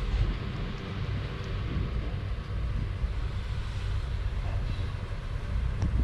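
Steady low rumble and hiss of wind-like noise on a microphone held close, with no clear animal calls.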